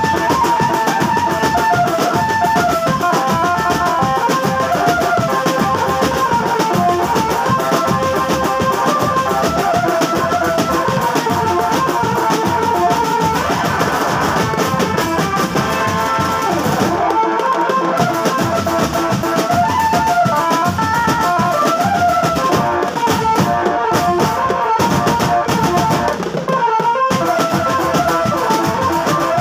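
Casio SA-65 electronic keyboard playing a fast melody over a drum band's marching drums and percussion. The drums drop out briefly twice, once past the middle and once near the end, while the keyboard carries on.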